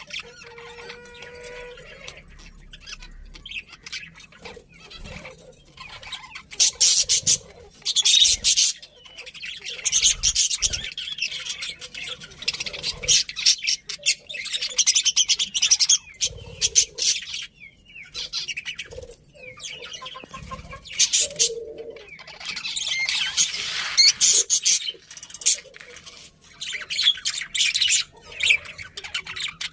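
Budgerigars chattering and chirping, rapid high warbling that swells into several loud bursts and drops back to quieter chatter in between.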